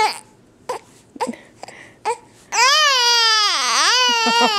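Baby hiccuping a few times with short sharp catches, then breaking into a long, loud, high cry that dips in pitch in the middle and ends in choppy sobs.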